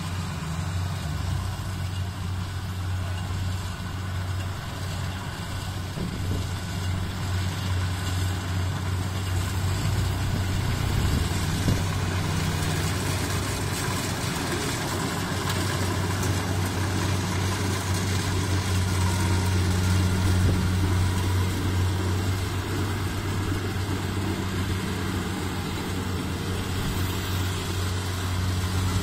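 Kubota DC70 rice combine harvester's diesel engine running steadily while it cuts rice, a steady low hum that grows a little louder midway as the machine comes close.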